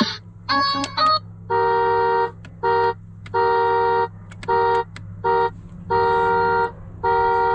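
Electronic horn of a Funcid 24V kids' ride-on UTV beeping through its dashboard speaker. It sounds about seven times with uneven lengths, each beep a single steady tone, as the horn button is pressed and held for different times.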